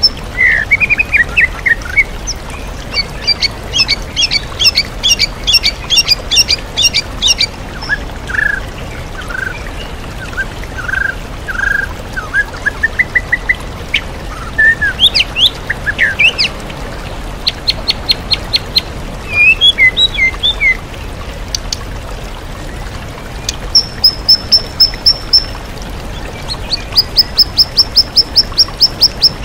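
White-rumped shama (murai batu) singing loudly and continuously, a varied song of short whistles, fast runs of repeated notes and trills that mixes in mimicked calls of other birds. The steady rush of a waterfall runs underneath.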